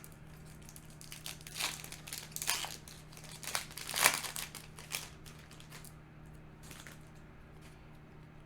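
Foil booster pack wrapper crinkling and tearing open, a run of crackly rustles over the first five seconds, loudest about four seconds in.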